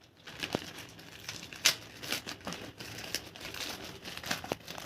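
Courier package being torn open by hand: the packaging crinkles and tears in a run of sharp crackles, the loudest about a second and a half in.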